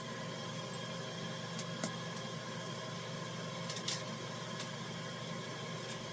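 Steady mechanical hum of a running fan or appliance motor, with a few light clicks between about one and a half and four seconds in.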